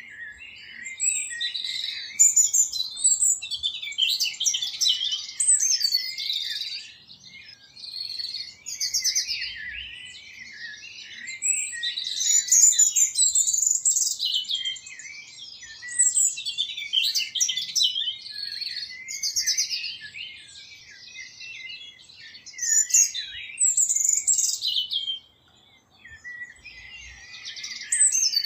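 Songbirds chirping and warbling, a dense chorus of many overlapping high calls with a couple of brief lulls.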